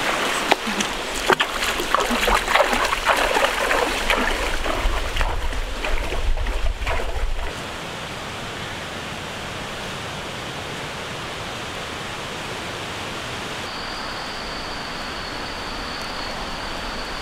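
A rocky stream running, with scattered knocks and a low rumble over the water for the first seven seconds or so. Then it cuts suddenly to a quieter, steady hiss, joined about two seconds later by a thin, steady high whine.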